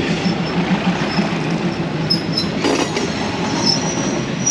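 SRT diesel railcar train rolling past close by: a steady low rumble of wheels on the rails, with a few sharp clacks and short high-pitched wheel squeals now and then.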